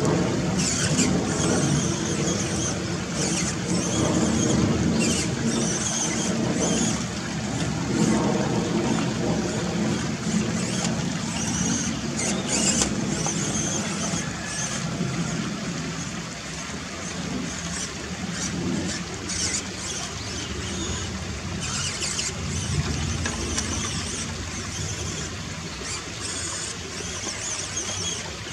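Electric motor (55T) and metal gears of a 1:18 scale RocHobby Unimog RC truck whining as it crawls through a shallow rocky stream, with running water around it. The high whine comes and goes.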